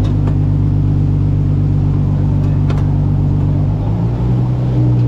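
A motor running with a steady low hum made of several tones, its pitch shifting slightly about four seconds in; a couple of faint clicks.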